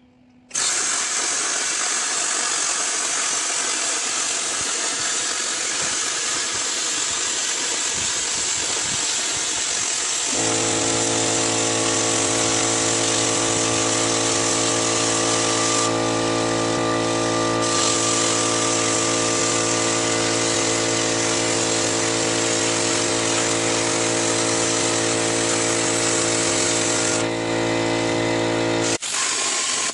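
Plasma cutter cutting quarter-inch steel plate: a loud, steady rush of air, joined about ten seconds in by a steady buzzing hum. Both cut off abruptly near the end.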